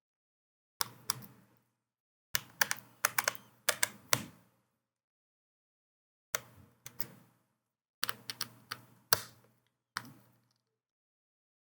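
Short bursts of small, sharp clicks and taps from a precision screwdriver and tweezers working on a laptop's internal bracket and motherboard screws, in about five clusters separated by silence.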